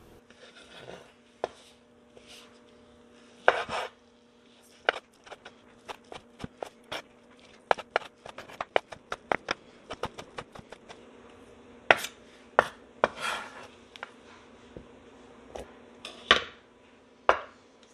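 Chef's knife dicing rehydrated shiitake mushrooms on a wooden cutting board: irregular sharp taps of the blade on the board, quickening to about three or four a second in the middle, with a few longer, noisier strokes. A faint steady hum lies underneath.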